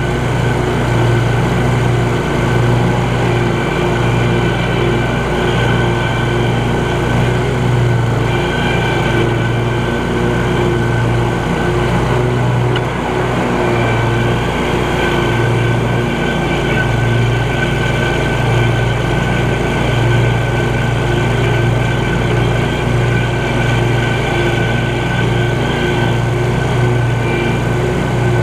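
Scag Cheetah 52 zero-turn riding mower running steadily while mowing grass, with a constant low engine hum and steady higher whine.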